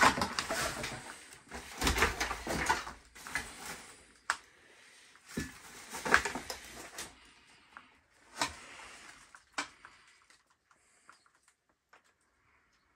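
Irregular knocks, clicks and rustling of people moving through a trash-strewn room, busiest in the first few seconds with sharper knocks about six and eight and a half seconds in, then dying away to faint scattered ticks.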